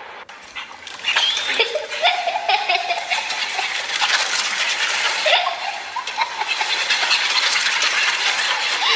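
Kitten and pug playing on a tile floor: a busy scrabbling patter throughout, with a few short squeaky cries about a second and a half in and again past the middle.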